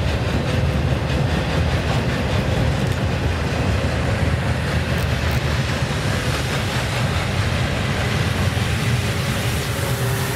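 Double-stack intermodal container train's well cars rolling past at speed: a steady, heavy low rumble of steel wheels on the rails.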